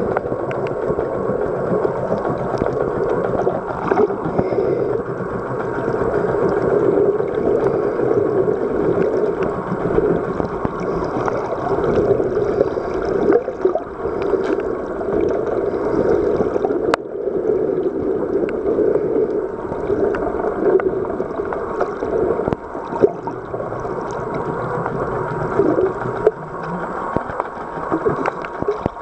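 Muffled underwater rush of sea water heard through an underwater camera swum along just below the surface, steady throughout, with a single sharp click about seventeen seconds in.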